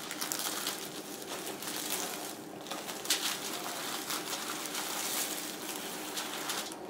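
Plastic oven bag crinkling and rustling as hands press it tight around a slab of ribs to seal it, in irregular crackles that come loudest near the start and about three seconds in.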